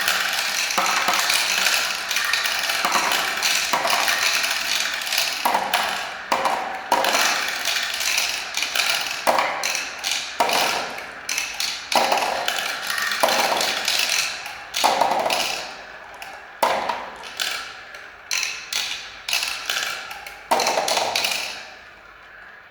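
Many small balls rolling and clattering down a marble run track: a dense rattle of clicks and rolling noise that thins into separate clacks and fades near the end.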